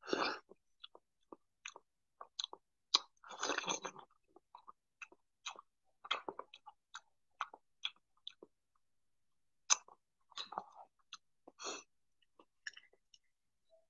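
Close-up eating sounds: a bite into a ripe prickly pear fruit at the start, then chewing of its seedy flesh with many short, wet mouth clicks, a louder stretch of chewing a few seconds in.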